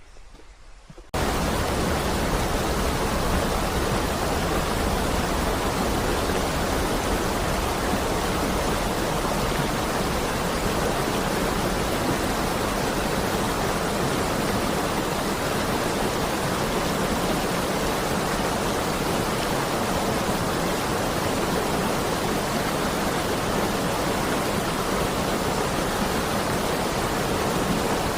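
Mountain valley stream rushing: a loud, steady water noise that cuts in abruptly about a second in, after faint forest ambience.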